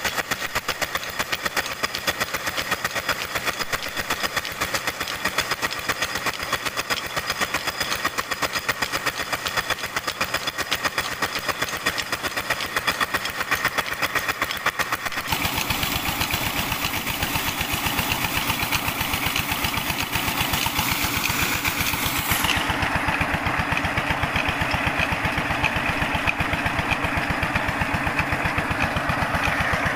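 Single-cylinder diesel engine running steadily while driving a tubewell pump, its fast even beat mixed with the rush of water gushing from the outlet pipe into a brick tank. The balance of the sound shifts abruptly about halfway through and again later.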